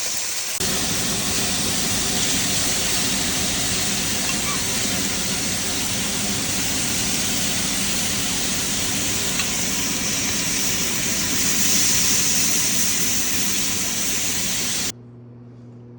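Steaks searing in a cast iron pan: a steady sizzle that cuts off abruptly about a second before the end, leaving a quiet steady hum.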